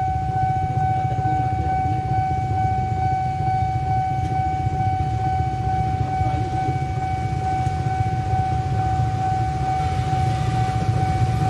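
Level-crossing warning alarm sounding one steady, unbroken high tone, warning of an approaching train, over a low rumble.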